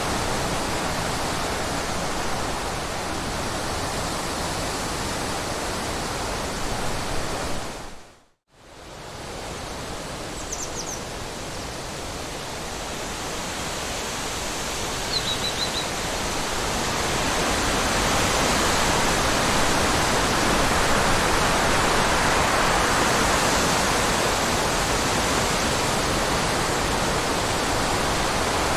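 Rushing water running in a steady, even hiss. It fades out to silence for a moment about eight seconds in and comes back, with a couple of faint, short high chirps a little later.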